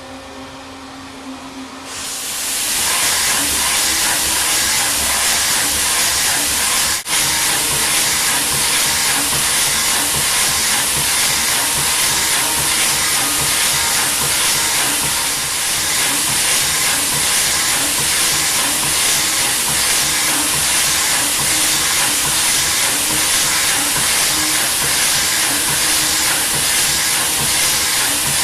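Daewoo Lynx CNC lathe broaching an internal keyway in aluminum with a carbide-insert keyway cutter: a low machine hum gives way about two seconds in to a loud, steady hiss with a fast, even pulsing as the cutter strokes back and forth.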